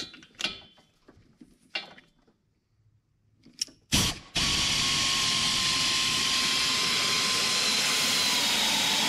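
Pneumatic air ratchet running a header bolt down: a short burst about four seconds in, then a steady airy whir for about five seconds, its pitch sagging slightly near the end as the bolt snugs up.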